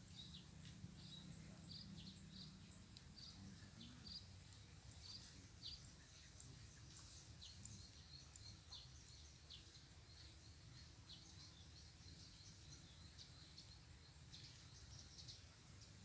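Faint rural ambience: small birds giving many short, high chirps scattered throughout, over a low steady rumble.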